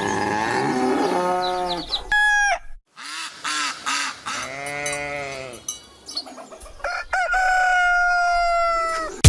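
Rooster-like crowing: a short crow about two seconds in, a longer arched crow in the middle, and a long drawn-out crow near the end.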